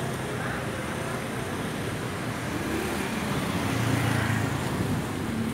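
Steady background road traffic, swelling with a low rumble about four seconds in.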